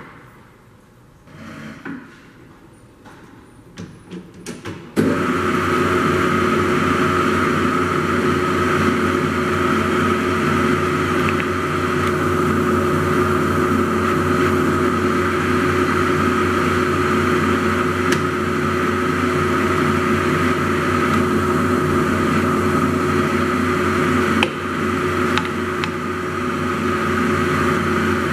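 A few clicks of the controls, then about five seconds in the Harrison AA variable-speed lathe starts up and its headstock and spindle run steadily with a steady whine, at about 480 rpm by the readout. The level dips briefly about four seconds before the end.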